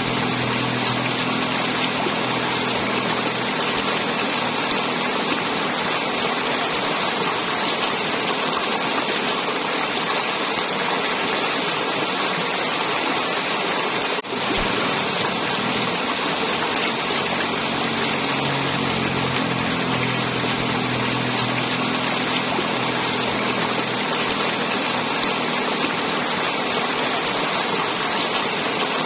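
River water flowing and gurgling steadily, with a brief drop in level about halfway through.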